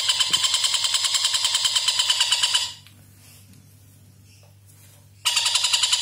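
Oriental dollarbird (tengkek buto) chattering: a long run of harsh, rapidly repeated notes at about five a second. It breaks off about two and a half seconds in, pauses for a couple of seconds, then starts again at the same pace.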